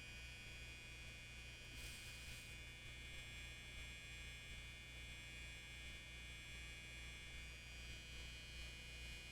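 Low steady electrical hum with faint high steady tones over it; a brief hiss about two seconds in.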